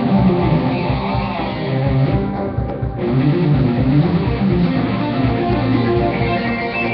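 Electric guitar played continuously, a steady run of notes with no pauses.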